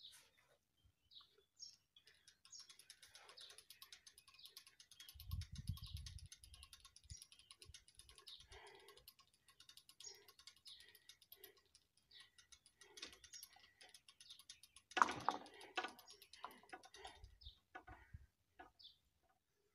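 Faint rapid, even clicking from the PZM-2 mechanical level-crossing barriers as their arms are lowered, with a brief knock about three-quarters of the way through. A few faint bird chirps.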